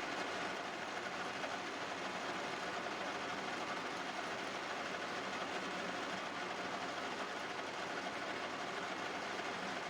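Metal lathe running steadily, a constant mechanical hum and whir with no breaks.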